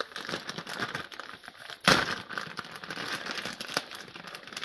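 Foil-lined plastic instant-noodle packet crinkling and crackling as hands tear it open and pull the wrapper apart, with one sharp, much louder crackle about two seconds in.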